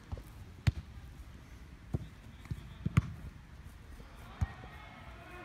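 A football being kicked and bouncing on grass during a foot-tennis rally: about six sharp thuds at uneven intervals, the loudest about a second in and about three seconds in.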